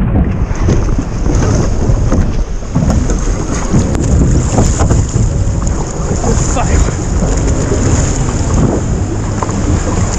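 Heavy wind buffeting the microphone over surf and sloshing water, with a few short knocks and splashes.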